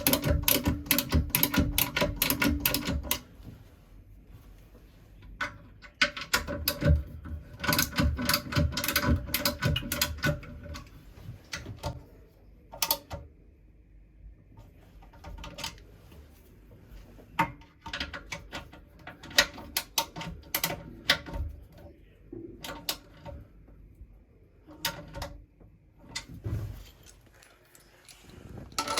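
Hand tools at work: bursts of rapid ratchet-like mechanical clicking, strongest for the first few seconds and again from about six to ten seconds in, then scattered single clicks and knocks.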